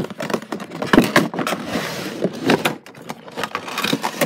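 Crinkling, rustling and knocking of a cardboard Funko Pop box and its clear plastic protector sleeve being handled and opened one-handed, with a run of quick clicks and bumps and a brief crinkly rustle about two seconds in.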